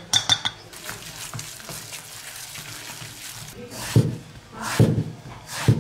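A kitchen cleaver slicing through eggplant and striking a wooden chopping board, three cuts a little under a second apart in the second half. At the start there are quick clicks of chopsticks against a stainless steel mixing bowl of meat filling.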